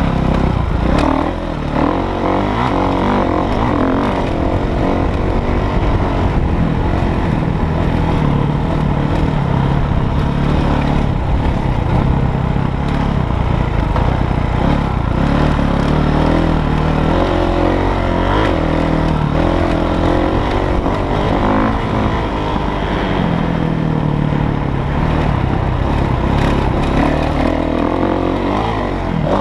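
Dirt bike engine racing round a motocross track, heard close from an on-bike camera, its pitch climbing and dropping over and over as the rider accelerates, shifts and backs off.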